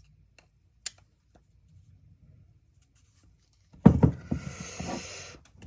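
Faint clicks of a screwdriver working at a stuck screw on an old carburetor. About four seconds in there is a sudden loud knock, followed by over a second of louder, strained, pitched sound.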